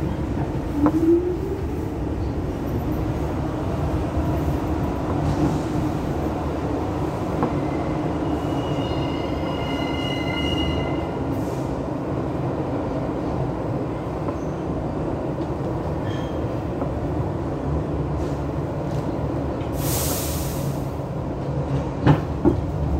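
Kawasaki R62 subway car (Bombardier Groupswitch propulsion, GE 1257E1 traction motors) running: a steady rumble of wheels on rail, with a brief high wheel squeal in the middle, a burst of hiss about twenty seconds in, and a couple of sharp clunks near the end.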